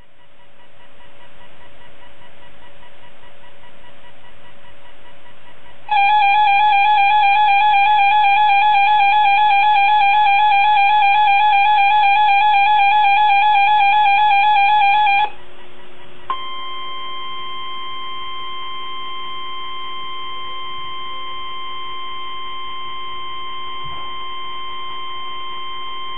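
NOAA Weather Radio alert signals for a required weekly test, heard through a weather radio receiver. A steady hiss comes first; about six seconds in, a loud warbling alert tone sounds for about nine seconds and cuts off. After a short gap comes the steady 1050 Hz warning alarm tone.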